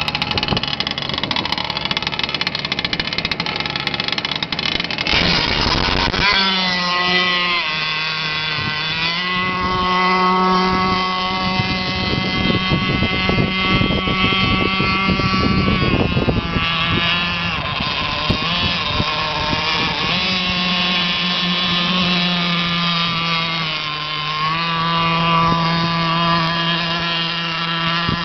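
Small petrol engine of a radio-controlled model speedboat running at high revs, rough and loud for the first few seconds close by, then a steady high whine as it runs across the water. The pitch dips and climbs again several times as the throttle is eased and reopened.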